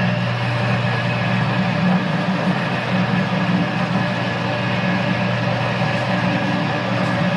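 Metal lathe running under load as a 1.5-inch twist drill bores through a steel backhoe link: a steady motor and gear hum with the continuous scraping hiss of the drill cutting. The drill is not very sharp and is making a lot of heat.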